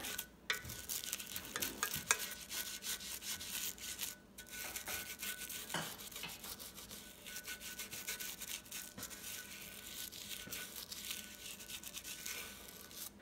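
A stiff-bristled brush scrubbing rapidly back and forth over degreaser-soaked grime on the painted base of a KitchenAid stand mixer, a continuous scratchy scrubbing with a brief pause about four seconds in.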